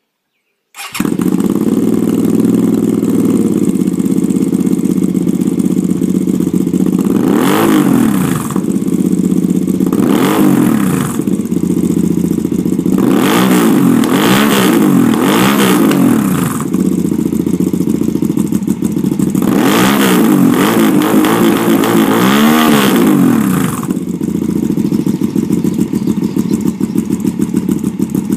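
2015 Hyosung ST7 V-twin cruiser engine, breathing through custom Turnas 2-into-2 pipes, starts up about a second in and idles with a loud exhaust note. Through the middle it is revved in repeated throttle blips, the pitch sweeping up and back down each time, then it settles back to a steady idle.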